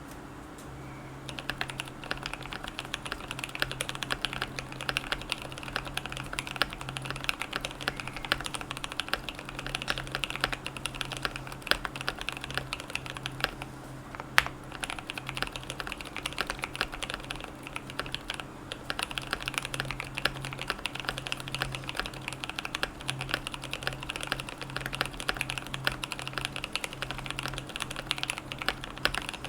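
Typing on the alpha keys of a GMMK Pro mechanical keyboard with Durock Burgundy switches on a polycarbonate plate and PBT keycaps: rapid, continuous keystrokes starting about a second and a half in, with brief lulls around the middle. A faint steady hum sits underneath.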